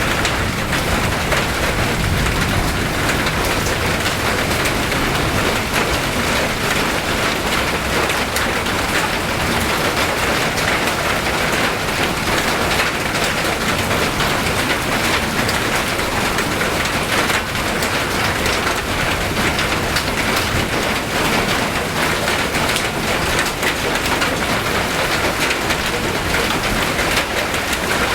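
Steady rain falling and pattering on surfaces, a dense, even hiss of drops with no letup.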